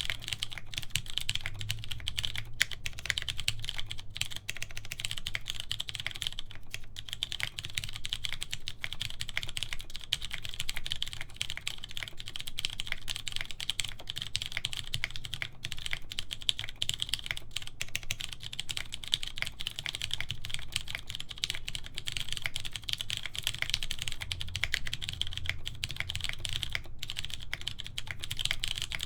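Continuous fast typing on a mechanical keyboard with lubed Cherry MX Clear tactile switches, aluminium plate and DCS PBT keycaps: a dense, steady stream of key clacks.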